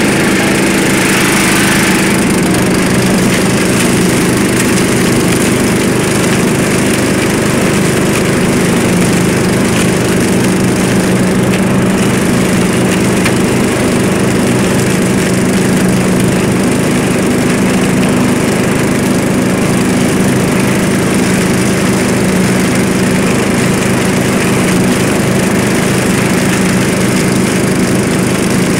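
Murray lawn mower's small engine running steadily while it picks up and bags leaves, with a constant rush of leaves and debris passing through the deck and bagger chute.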